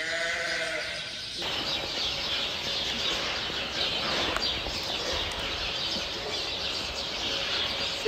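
A sheep bleating: one long, wavering bleat, cut off abruptly after about a second and a half. Then a steady high hiss of open-air background noise.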